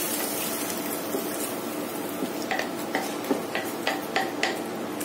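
Wooden spatula stirring tomato and roasted peppers in a pot over a steady sizzle, just after water has been added. A run of light knocks against the pot comes in the second half.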